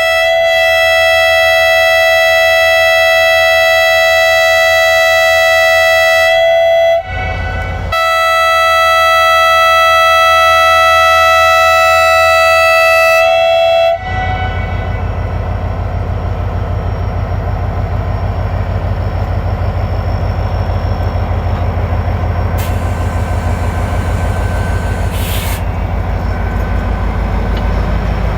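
Horn of an EMD HGMU-30 diesel locomotive sounding two long blasts, about six or seven seconds each with a short gap between them. After the second blast comes the steady low rumble of the locomotive and its train.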